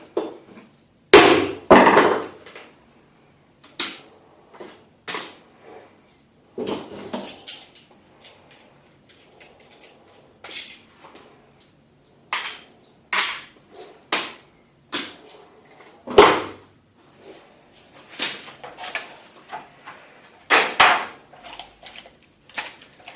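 Hammer tapping a thin punch to drive out the rivets of an Alox Pioneer pocketknife: about two dozen sharp metallic knocks at uneven intervals, the loudest in the first two seconds.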